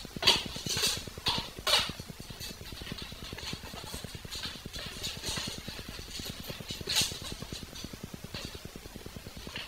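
Scattered sharp clicks and clinks of hand tools on metal bike parts, several in the first two seconds and one more about seven seconds in, over a steady low background rumble.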